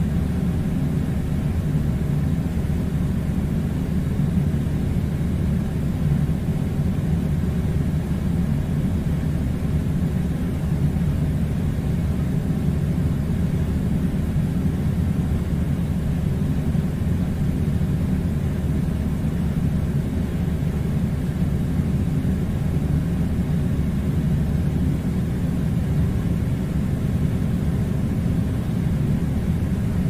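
Air conditioner running: a steady low rumble with a faint hum over it.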